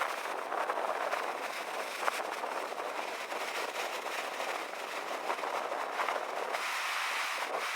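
Rough sea surf breaking and washing over coastal rocks in strong wind: a continuous rushing hiss with small irregular crackles, turning brighter near the end.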